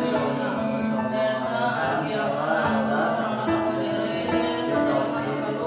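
Background music of steady held chords.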